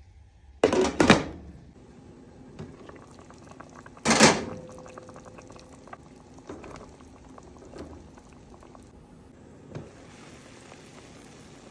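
Soup bubbling in a pot on the boil, with two loud knocks about a second in and a louder one about four seconds in, then soft steady bubbling with small clicks.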